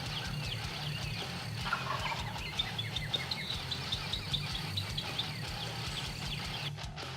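Eastern wild turkey gobbler gobbling once, a falling rattle about two seconds in, with smaller birds chirping throughout.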